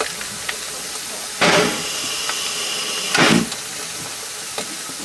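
Steam hissing steadily from a standing Vale of Rheidol narrow-gauge steam locomotive, No. 8. About a second and a half in, a louder rush of steam with a thin whistling tone runs for about two seconds and ends in one more surge, with faint metallic clinks from the coupling being worked.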